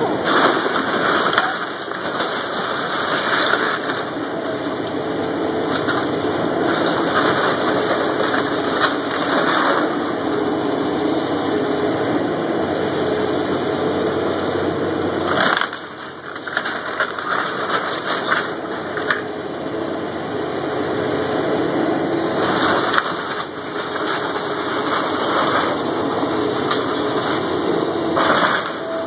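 Caterpillar excavator's diesel engine running under load while its bucket crushes and drags the timber wreckage of a house, with irregular cracking and splintering of wood. There is a sharp crash about halfway through.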